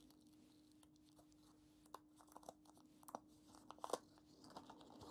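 Faint crinkling and tearing of a thin protective wrap being peeled off an Apple Pencil Pro: a few soft, irregular crackles starting about two seconds in.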